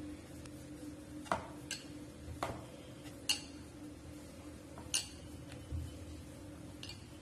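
Wooden rolling pin rolling out poori dough on a wooden board, with scattered sharp clicks and knocks as the pin meets the board, about seven in all over a steady low hum.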